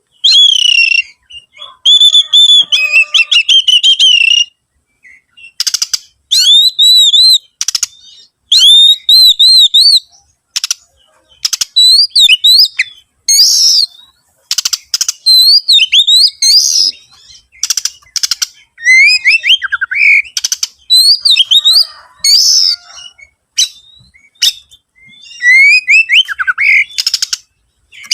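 Oriental magpie-robin (kacer) singing a loud, varied song: quick runs of clear whistles that rise and fall, mixed with harsh rasping notes, in phrases with short pauses between them.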